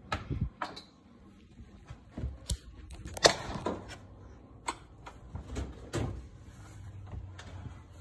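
Scattered knocks, taps and clatter of hands handling hard parts, irregular and unrhythmic, the loudest a little over three seconds in.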